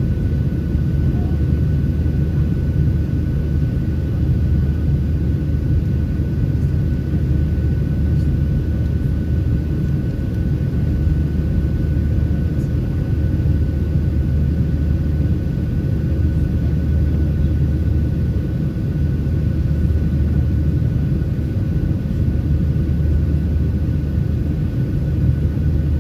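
Steady low rumble of a Boeing 737-700's CFM56 engines and airflow heard inside the passenger cabin in flight, with a faint steady whine above it.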